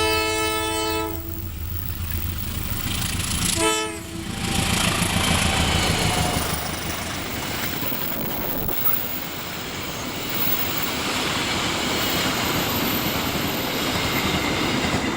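Indonesian diesel locomotive's air horn giving the Semboyan 35 horn signal: a blast of about a second and a half, several notes sounding together, then a short second blast about three and a half seconds in, over the engine's low rumble. After it, the train's wheels run past on the rails as a steady rushing noise.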